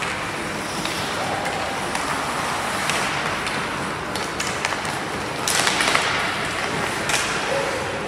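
Ice hockey play: skates scraping the ice and sticks clacking against the puck and each other, with a cluster of sharp clacks a little over five seconds in. Voices murmur underneath.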